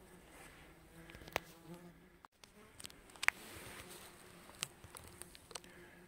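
A flying insect buzzing with a low steady hum, with a few sharp clicks or snaps, the loudest about three seconds in.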